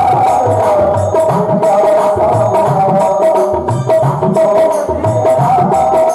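Instrumental devotional bhajan music: a held melody line over a steady hand-drum beat, with sharp bright percussion strokes on top.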